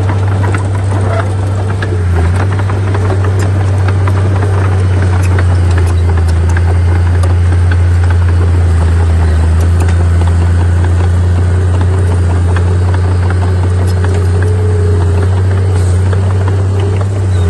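Bulldozer's diesel engine running steadily with a deep, even drone, with scattered light clanks and rattles over it.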